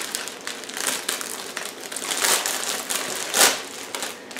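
Clear plastic bags crinkling and rustling as hands open and handle them, in irregular bursts, the loudest crinkle about three and a half seconds in.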